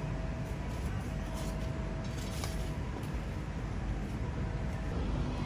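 Steady low rumble of background noise with a few faint ticks.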